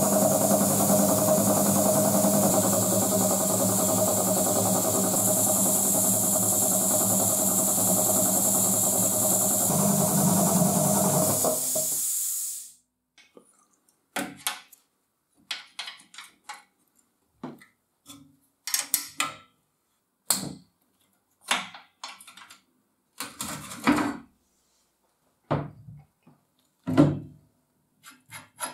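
A 1959 belt-driven electric air compressor runs with a steady hum and hiss. This is the broken unit, which the owner says was slow to build pressure. About twelve seconds in it shuts off and dies away within half a second. Then come short, separate metallic clicks and scrapes as a wrench and fingers loosen its bolts and pipe fittings.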